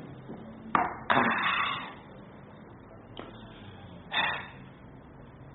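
A person drinking from a cup: a short click about a second in followed by a noisy gulp, and the same again near four seconds.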